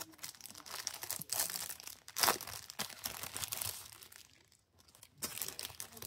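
Thin clear plastic packaging bag crinkling and crackling as a phone case is handled inside it. The crackles are loudest about two seconds in, ease off for a moment near the end, then pick up again.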